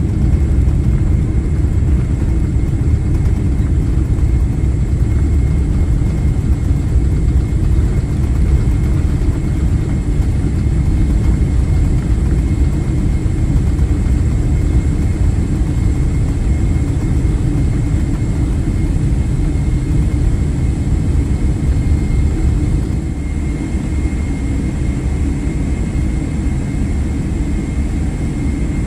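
Cabin noise of a Boeing 777-300ER on its landing rollout: a steady low rumble from the wheels on the runway and the GE90 engines, with a faint steady high whine. The rumble eases a little about 23 seconds in as the aircraft slows.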